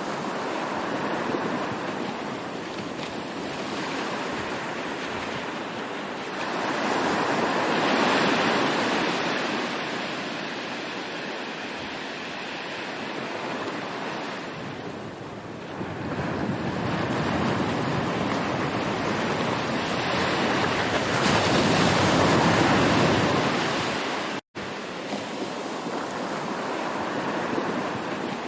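Ocean waves washing onto the shore, the surf swelling to two louder surges and ebbing between them. A split-second break in the sound comes a little before the end.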